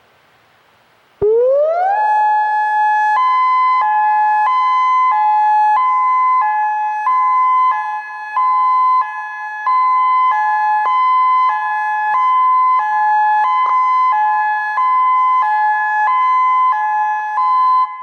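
Federal Signal Modulator 8032B electronic warning siren sounding its hi-lo tone, the flood-warning alert. It starts with a short rising sweep about a second in, then switches back and forth between a higher and a lower tone about every two-thirds of a second, loud and steady, and cuts off just before the end.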